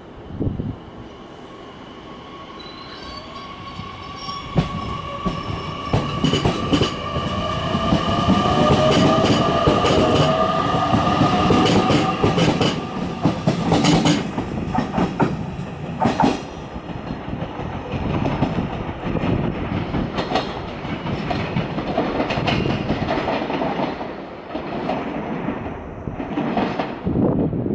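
JR Kyushu 813 series electric train pulling away from a station. The traction motors give steady whining tones and a rising whine as it gathers speed, over rapid clacks of wheels crossing rail joints. It is loudest in the first half, then eases with the clacking going on.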